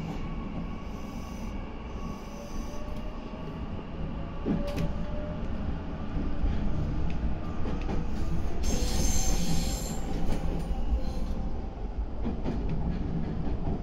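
Meitetsu 9500 series electric train running, heard from inside the front car: a steady rumble of wheels on rail with a faint whine that shifts in pitch. It grows louder about halfway through, with a brief high-pitched hiss around nine seconds in.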